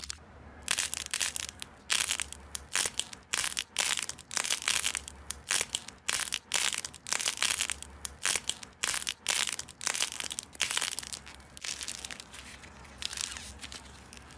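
Slime being squeezed and pressed by hand: a rapid, irregular run of short crackles and pops, several a second, over a faint low hum.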